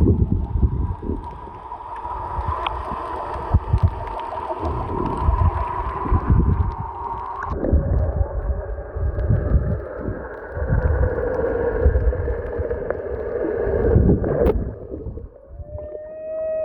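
Humpback whale song heard underwater: long held tones with overtones, shifting in pitch about halfway through, and one tone near the end that rises and then holds steady. Under it runs low, irregular thumping and gurgling water noise.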